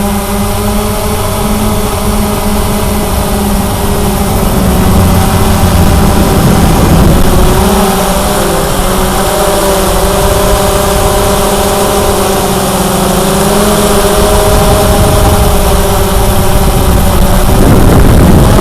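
Cheerson CX-20 quadcopter's brushless motors and propellers running with a steady buzzing hum, its pitch wavering slightly.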